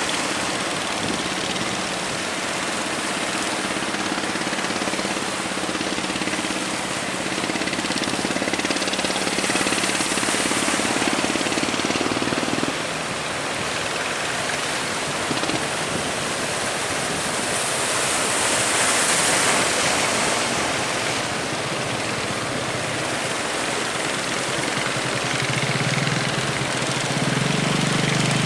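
Boat engine humming under a steady rush of wind and sea water from heavy waves. The engine hum drops out about halfway through and a lower hum comes back near the end.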